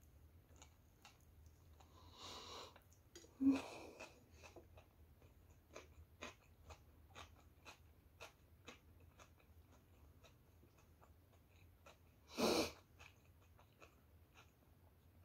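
Soft close-up chewing of a bread sandwich, with many small wet mouth clicks, and a few louder breaths, the loudest about twelve seconds in.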